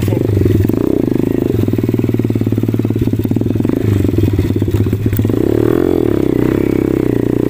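Rusi KR Mini 110 cc pit bike's small single-cylinder four-stroke engine running steadily under way. Its revs sag and pick back up about two-thirds of the way through.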